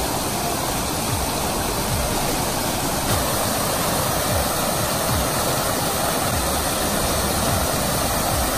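Water falling from a fountain and splashing into a swimming pool, a steady rushing noise.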